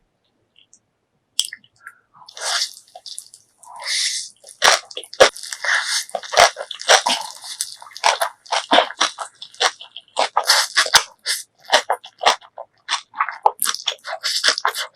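Close-miked eating of kimchi and ramen noodles: wet crunching bites and chewing, a dense run of sharp clicks and short noisy bursts that starts about a second and a half in.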